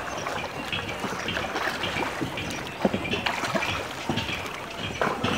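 Water splashing and lapping around wooden shikara boats moving close together on the lake, with a few sharp knocks, the loudest about three seconds in.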